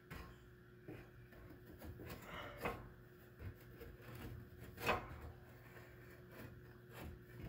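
Rubbing and scraping as a ceramic fire blanket and new baffle are worked up into the top of a wood stove's firebox, with a few knocks against the stove; the loudest knock comes about five seconds in.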